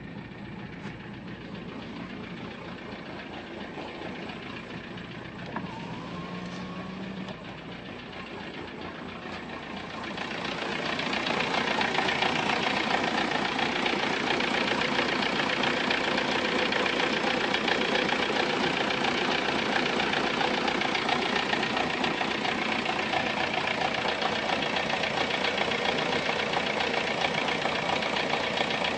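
Volkswagen Golf Mk3 engine running steadily, getting louder about ten seconds in and staying so. This is the strange engine noise the owner sent in to be diagnosed.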